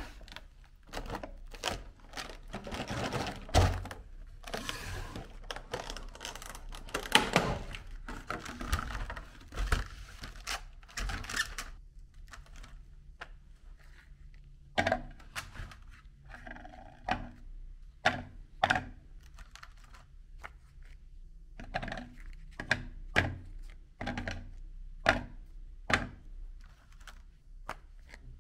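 Thin clear plastic clamshell tray crinkling and clicking as it is handled and opened, then a string of separate light clicks and taps as hard round cookies are lifted out, knocked against each other and set down on a plate.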